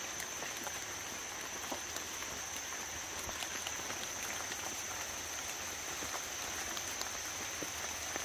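Water dripping from the soaked forest canopy after the rain has stopped: scattered drops ticking on leaves and the wet canvas over a soft even hiss. A steady high-pitched insect drone runs underneath.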